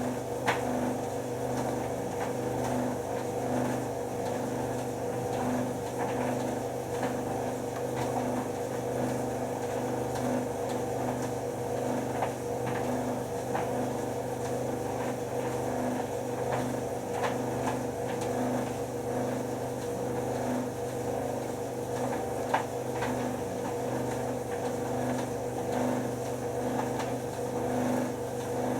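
White Knight C44A7W vented tumble dryer running: a steady motor and drum hum with a slow regular pulsing and a few faint ticks.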